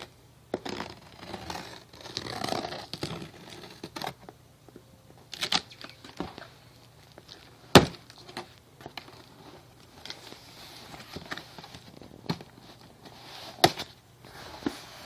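Package being opened by hand: irregular crinkling and tearing of packing material, with a few sharp knocks or snaps, the loudest about eight seconds in and again near the end.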